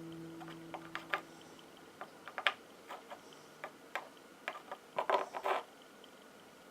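Light, irregular clicks and taps of small hard objects handled on a hard tabletop, with a quick run of several about five seconds in.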